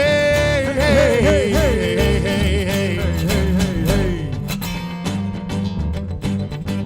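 Live band music: a wavering, held lead line over electric bass and a steady drum beat. About four seconds in the lead line stops, leaving the bass and drum groove with guitar.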